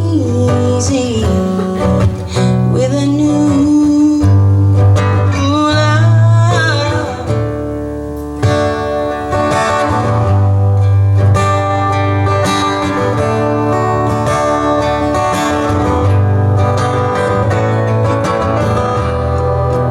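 Live band music: acoustic guitars and a steady bass, with a lead guitar playing bending, sliding notes in the first half.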